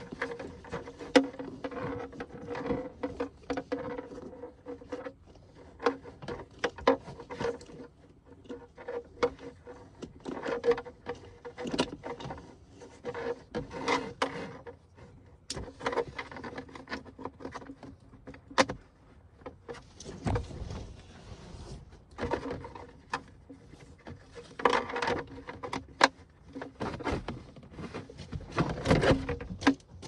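Steady clicking, knocking and rubbing from hands working on car interior trim and seatbelt hardware, with a low hum that comes and goes. A few heavier thumps stand out about two-thirds of the way in and near the end.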